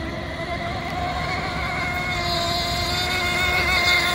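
Nitro glow engine of a radio-controlled racing hydroplane running at speed, a steady high engine note that grows louder toward the end. The tune sounds probably two clicks rich.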